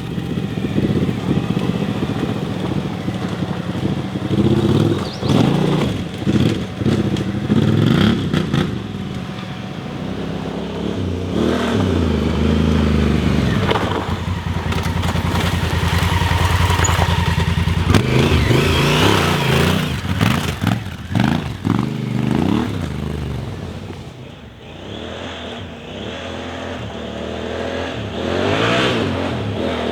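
Twin-cylinder adventure motorcycle engine riding off-road, its revs rising and falling repeatedly with the throttle, with knocks and clatter from the bike over rough ground. The engine eases off about three quarters of the way through, then picks up again.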